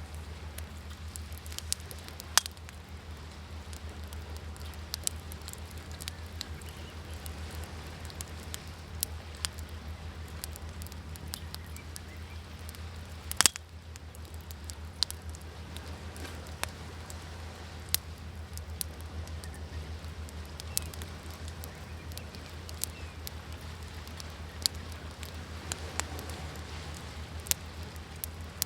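Wood fire crackling, with sharp pops at irregular intervals, the loudest about halfway through, over a steady low background wash.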